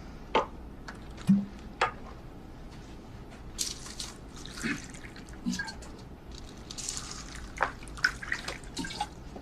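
Tea being poured into cups, with splashing runs of liquid and a few light clicks.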